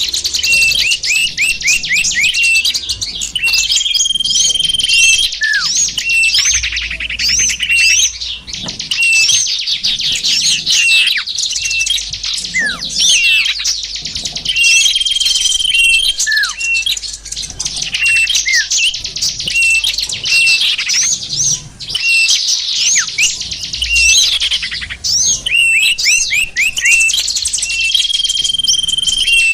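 Small-bird lure call: a dense, nonstop chatter of rapid chirps and twitters from small songbirds, with a held steady whistle recurring about three times.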